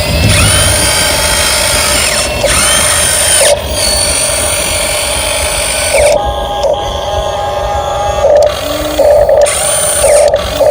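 Electric motor and gearbox of an RC model dump truck whining as it drives, speeding up and easing off in spurts, with the whine changing character about halfway through.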